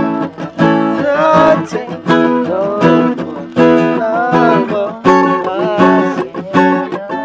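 Cutaway acoustic guitar being strummed in chords, a fresh strum every half second to a second.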